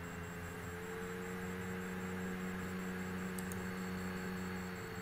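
Steady low electrical hum with a few faint steady tones over it: room tone. There is a faint click about three and a half seconds in.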